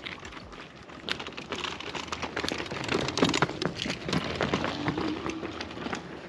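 A scooter being walked over rough stone slabs and dry leaves: its wheels and frame clatter and rattle over the rock, mixed with crunching footsteps. It is loudest about three seconds in as it passes close by.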